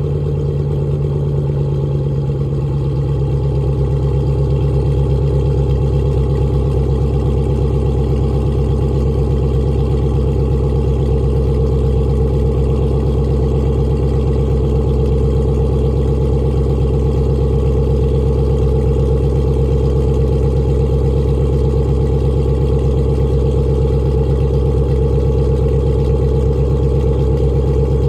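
Dodge Hemi V8 with catless mid pipes running steadily at a constant engine speed, its exhaust drone holding one even note.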